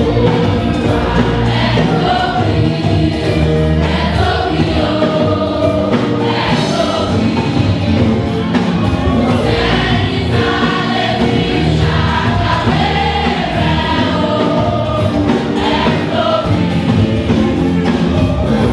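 A choir singing a gospel song over a loud, steady band accompaniment, with frequent drum hits.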